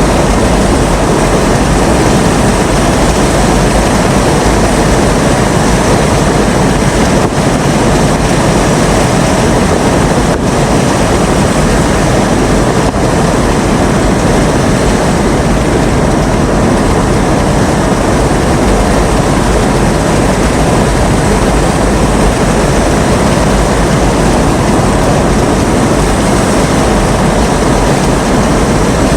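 Loud, steady rushing of strong storm wind and heavy rain, with wind buffeting the microphone.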